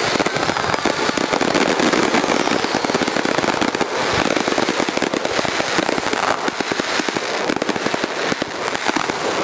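Aerial fireworks in a finale barrage: shell bursts go off in rapid, overlapping bangs over continuous crackling, with no break.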